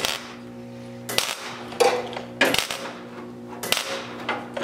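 Sharp knocks from hand bodywork on the car's rusted lower body: about five in four seconds, irregularly spaced, over a steady hum.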